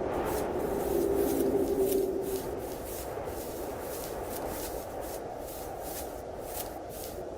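Footsteps crunching through snow, about two to three steps a second, over a steady storm wind.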